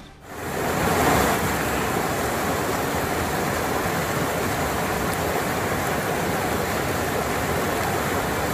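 Steady rush of heavy rain and running floodwater on a city road, with road traffic.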